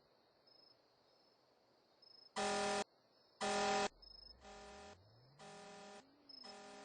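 Car alarm sounding on the car's horn: five honks about a second apart, each about half a second long, beginning about two seconds in. The first two are loud, the last three quieter.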